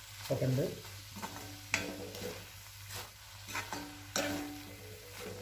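A metal spoon stirring brinjal pieces in a thick masala in a heavy black kadai, with about half a dozen scrapes and knocks of metal on the pan. A faint sizzle of frying runs under it.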